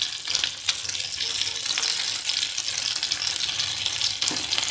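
Masala-coated Indian mackerel shallow-frying in hot oil in a pan: a steady sizzle with dense crackling pops. The fish is fully cooked and ready to come out of the oil.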